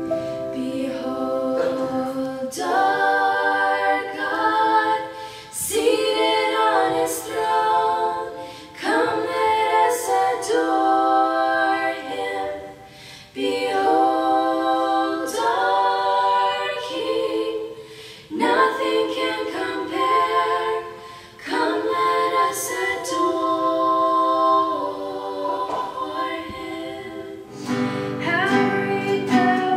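Three girls singing a Christian worship song together in parts, with no instrument. Near the end a new song starts: girls' voices with an acoustic guitar.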